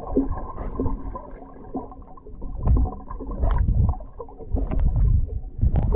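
Muffled underwater sound picked up by a waterproof action camera: uneven low rumbling surges of water moving against the camera, with scattered sharp clicks and ticks, the sharpest one just before the end.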